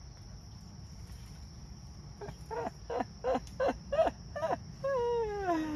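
Steady high insect chirring. About two seconds in, six short pitched sounds come in quick succession, then a long pitched sound falls slowly in pitch near the end and is the loudest thing heard.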